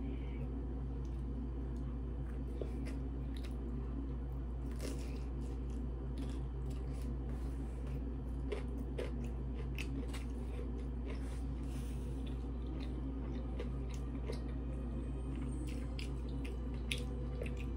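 Close-up chewing and crunching of raw cucumber slices topped with rice, heard as many small crisp clicks and crunches over a steady low hum.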